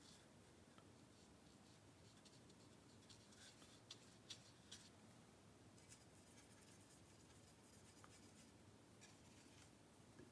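Near silence with faint, short scratchy strokes of a paintbrush on watercolour paper, most of them between about three and five seconds in.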